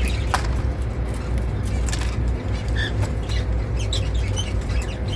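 Indian ringneck parakeet cracking sunflower seed shells in its beak: irregular sharp clicks and crunches, with a few short soft chirps, over a steady low background hum.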